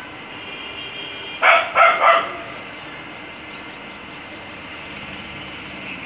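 A dog barking angrily, three quick barks about a second and a half in.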